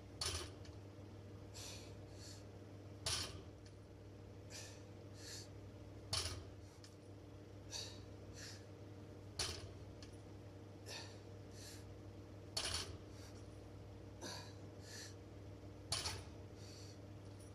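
A barbell loaded to 240 lb touching down on the floor at the bottom of each deadlift rep: a sharp metallic clink from the plates about every three seconds, six times in all. The lifter's breathing is heard between reps.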